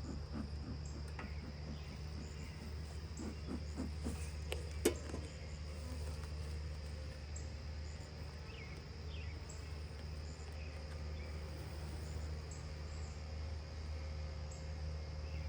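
Honeybees buzzing around an open hive, a steady low hum, with a thin steady high insect trill over it. A few light knocks and one sharp click about five seconds in.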